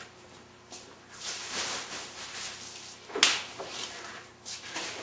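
Wooden drawer being slid into the wine cube's base: a sliding scrape about a second in, a sharp knock just after three seconds, then a few lighter knocks near the end.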